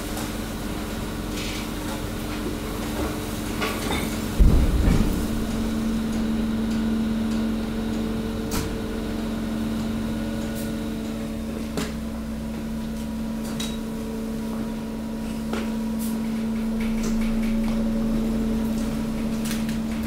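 Hydraulic waste compactor running under load, a steady hum as its ram pushes mixed waste through the hopper, with scattered knocks and one heavy thump about four seconds in.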